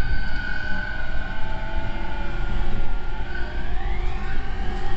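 JR East E231-series electric train's three-level IGBT VVVF inverter and traction motors, with several steady electric tones over the running rumble. The tones fall slowly, then glide upward from about three and a half seconds in.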